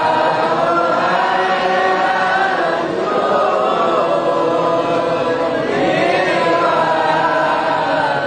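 A crowd of many voices chanting together in unison: a slow, melodic Islamic devotional chant of the Maulid, with long held notes that glide between pitches.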